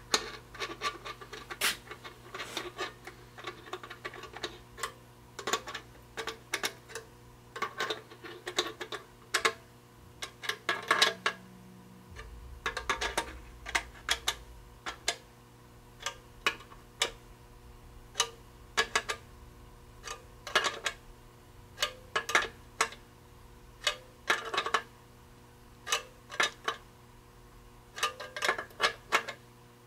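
Small hand ratchet clicking in short, irregular bursts as a new nut and lock washer are run down onto an oil pressure gauge's mounting bracket behind a sheet-metal dash panel.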